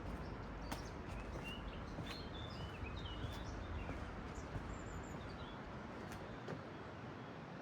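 A small bird twittering in quick, short chirps for a few seconds over a steady rushing background, with a few faint clicks.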